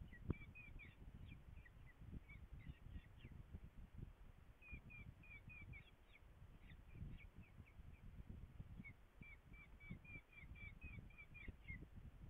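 Falcon chicks begging in the nest box: faint, rapid runs of short high chirps in three bursts, over a low wind rumble. They call while the adult feeds them.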